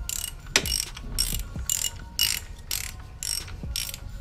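Socket ratchet wrench clicking in repeated back-and-forth strokes, about two a second, as it runs down the nut that draws the shock absorber strut's lower splined bolt into the steering knuckle.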